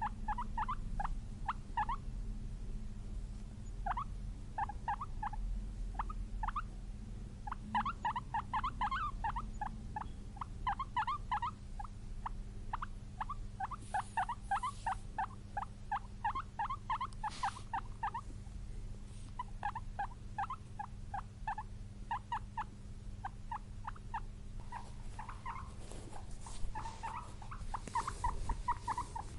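Guinea pig squeaking in long runs of short, rapid squeaks, several a second, with brief pauses between runs. A few scratchy clicks near the middle and end sound over a steady low hum.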